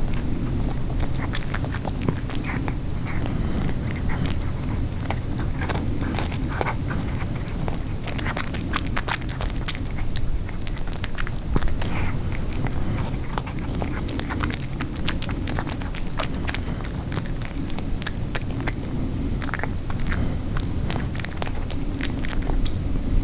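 A tabby cat chewing a chicken neck, with many small irregular crunches and wet clicks as she chews lightly and works at the pieces. A steady low hum runs underneath.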